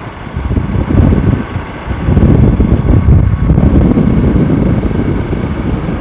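Wind buffeting the microphone on a moving motorcycle, with road and bike noise underneath: a low, uneven rumble that grows louder about two seconds in.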